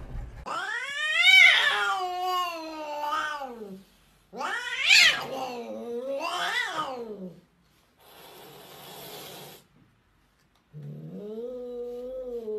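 A cornered cat yowling a warning: two long, wavering calls that rise and fall in pitch, a hiss lasting about a second and a half, then a lower, drawn-out yowl as a hand reaches toward it.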